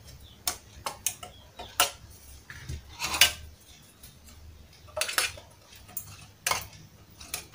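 Metal spoon clinking and scraping against thin aluminium llanera flan molds as caramel is spread over their sides, in irregular sharp taps, the loudest about three seconds in.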